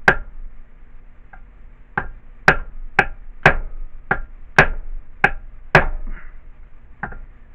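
Hammer blows on metal compressor parts: one strike at the start, then after a pause a run of about eight sharp ringing strikes at roughly two a second, and one lighter strike near the end, as a stuck part of the air compressor is knocked loose.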